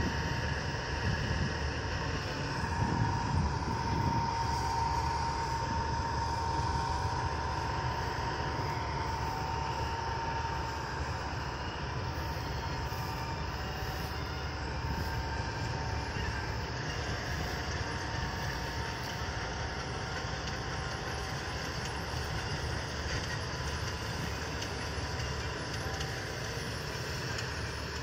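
Balkar combine harvester running steadily, a dense mechanical rumble with a steady whine over it that fades after about ten seconds.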